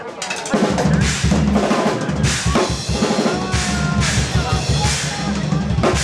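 Live drum kit solo on a clear-shelled kit: quick strokes at first, then about half a second in it builds into dense, loud bass drum and tom hits with repeated cymbal crashes.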